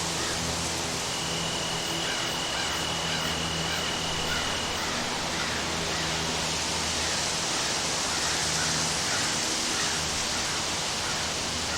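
Steady hiss of storm rain in a forest. A thin, steady high whine is held for a few seconds near the start, and small chirping animal calls repeat faintly underneath.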